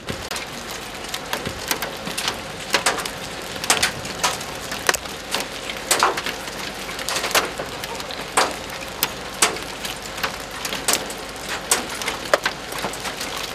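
Large hail pounding a paved street: a dense, steady hiss of falling hail and rain, broken by frequent sharp cracks as individual big stones hit the hard ground.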